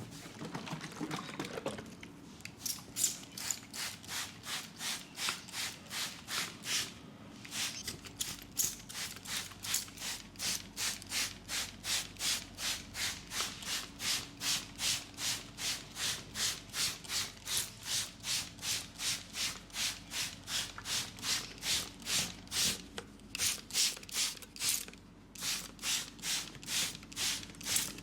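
Hands rubbing skin in a leg massage: a steady rhythm of brisk, hissy rubbing strokes, about two to three a second, with a couple of short pauses.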